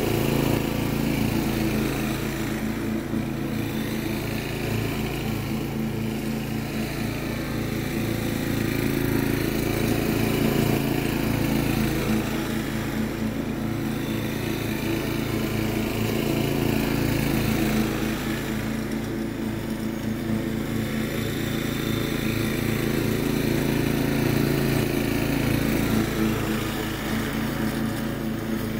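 Riding lawn tractor's engine running steadily while mowing grass, growing a little louder and quieter as the tractor moves back and forth across the lawn.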